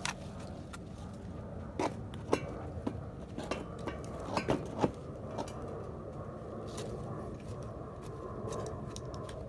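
A spade's blade working soil and compost in a garden bed: a string of sharp clicks and scrapes over the first five seconds or so, then fewer, over a steady low rumble.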